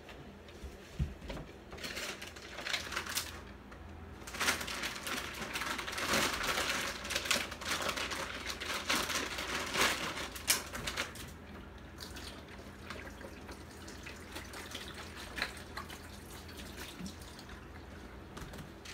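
Plastic wrap on a case of bottled water crinkling and rustling as a bottle is pulled out of it: a run of crackling bursts that is loudest in the middle and dies away about twelve seconds in, leaving only faint room hum.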